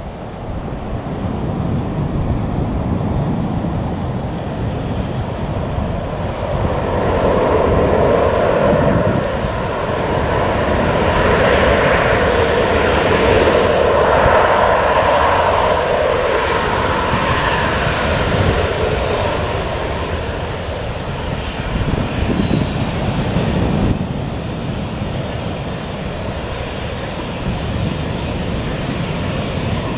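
Boeing 737-800 jet engines (CFM56) running during the landing roll-out: a steady roar that swells about seven seconds in and eases off after about eighteen seconds as the jet slows down the runway.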